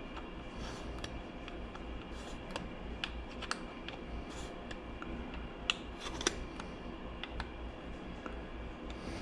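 Small irregular clicks and taps of hand tools working the screws of a motorcycle fender eliminator bracket, with two sharper clicks about six seconds in.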